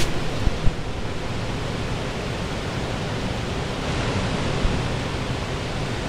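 Steady rush of water from a small waterfall cascading into a rock pool.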